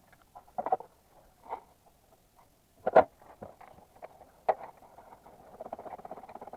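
Hand tools knocking and clinking against metal, a few separate knocks with the loudest in the middle, then a rapid fine clicking that starts about two-thirds of the way in and keeps going.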